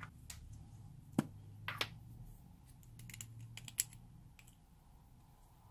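Light, scattered clicks and taps of small plastic clay tubs and a plastic applicator stick being handled, a dozen or so sharp clicks, the loudest about a second in and just before four seconds.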